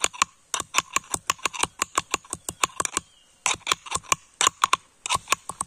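Metal pestle pounding garlic in a small metal mortar: quick, ringing metal-on-metal strikes about four to five a second, with a brief pause about three seconds in before the pounding resumes.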